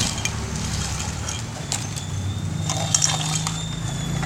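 A few scattered light clicks and taps, with a cluster about three seconds in, from plastic Play-Doh toys and tools being handled, over a steady low hum.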